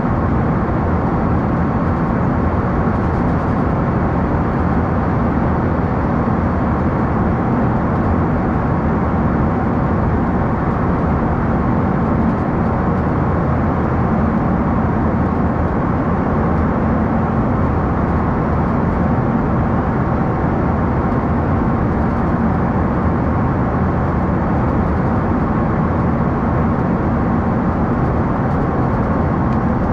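Embraer E145 regional jet in flight, heard from inside: a steady, unbroken rush of airflow and turbofan engine noise with a low hum.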